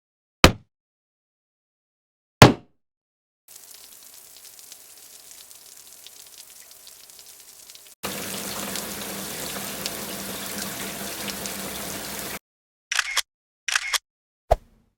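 A string of separate sound effects with silences between them. It starts with two sharp clicks, then a hiss like running water that is faint for about four seconds, jumps louder for about four more and cuts off suddenly. A few short bursts come near the end.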